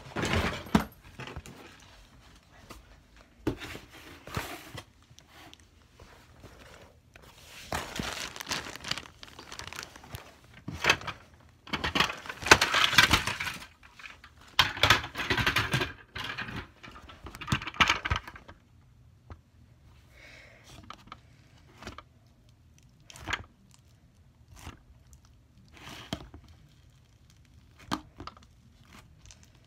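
Rustling, crinkling and knocking as the recording phone is handled and things are shuffled around, loudest in long bursts through the middle. Near the end, scattered small clicks and squelches of slime being kneaded by hand in a plastic tub.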